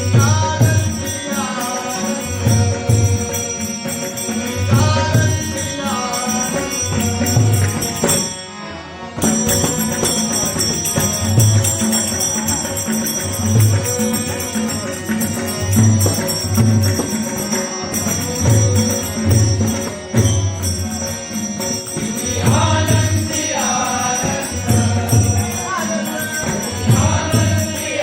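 Devotional bhajan singing of a Marathi abhang: a voice singing the melody over a steady hand-drum beat about once a second, with small cymbals ringing throughout. The music drops out briefly about eight seconds in.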